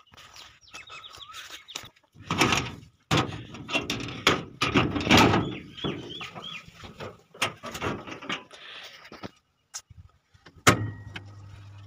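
The metal door of an electric pump's starter box rattles open amid handling knocks. About ten seconds in a sharp click comes as the starter is pressed on, and a steady low electrical hum follows.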